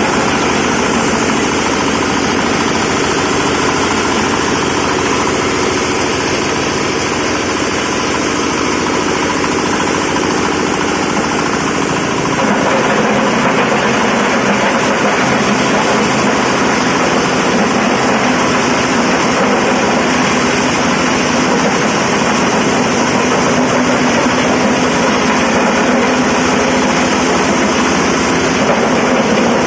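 Corn cob grinding machine running continuously. About twelve seconds in the sound steps up slightly and turns rougher.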